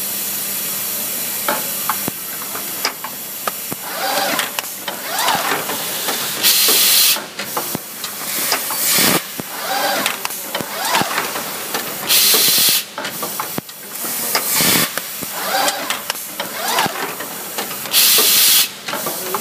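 Automated bag-making machine with pneumatic actuators running through its cycle: steady mechanical clatter, clicks and short whirs, with a sharp hiss of compressed air venting about every six seconds.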